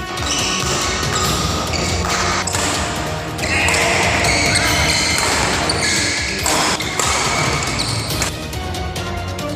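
Background music over the sounds of a badminton rally: repeated sharp racket hits on the shuttlecock and players' footwork on the court.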